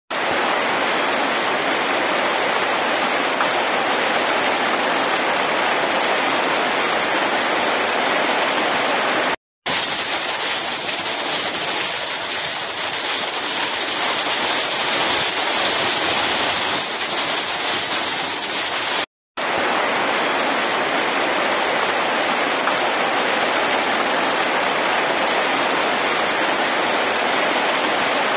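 Heavy rain pouring down in a steady, dense hiss. It cuts out for a split second twice, about a third and two thirds of the way through.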